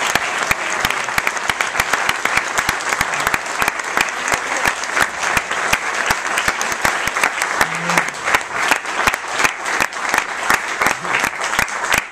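Theater audience applauding: dense, steady clapping from many hands.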